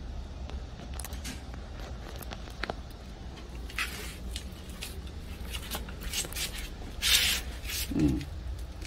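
Orchid pots and moss being handled: scattered small clicks and rustles, with a louder short hissy rustle about seven seconds in, over a steady low hum.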